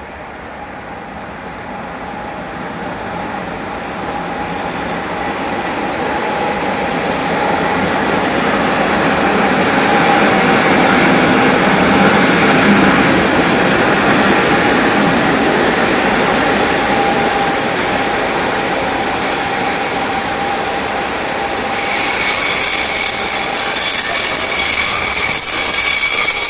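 Electric-locomotive-hauled passenger train with double-deck coaches pulling into the station, its rumble building to a peak partway through, with a steady high squeal of wheels and brakes. Near the end a louder, shriller squeal sets in as the train brakes.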